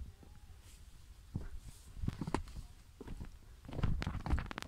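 Hiker's footsteps on a rocky mountain trail: irregular scuffs and knocks in small clusters, with low rumbling handling noise from the handheld phone.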